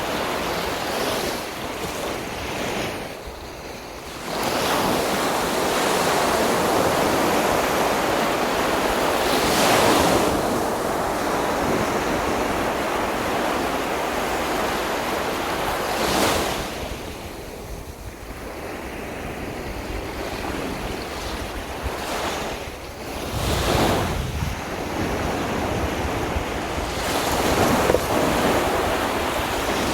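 Sea waves breaking and washing up the beach in surges a few seconds apart, with wind rumbling on the microphone at times.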